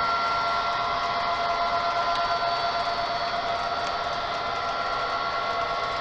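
HO-scale model freight train rolling along the track: a steady whir with a thin whine and a few faint ticks of the wheels on the rails.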